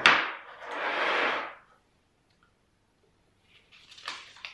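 Handling noise on a tabletop: a sharp clack as a cable connector is set down, then a second and a half of paper rustling and sliding as an instruction leaflet is handled. Softer rustles and taps follow about three and a half seconds in.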